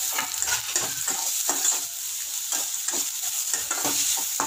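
Spoon stirring and scraping chopped onion and carrot around a metal pan, with the oil sizzling underneath as the vegetables sauté. The scrapes repeat about two or three times a second.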